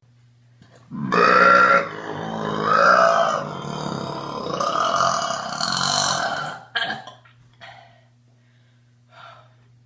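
A woman's long, drawn-out burp lasting about six seconds, starting about a second in, its pitch wavering up and down before it cuts off.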